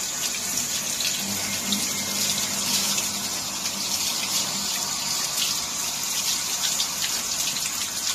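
Water running steadily from a garden hose and splashing onto a dog's wet coat and the concrete floor beneath it.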